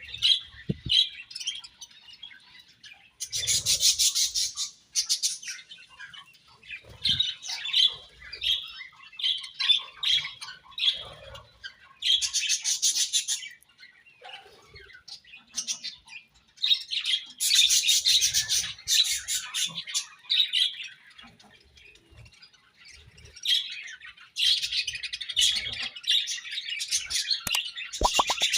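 A flock of budgerigars chirping and chattering, with loud, dense spells a few seconds long and scattered single chirps between them.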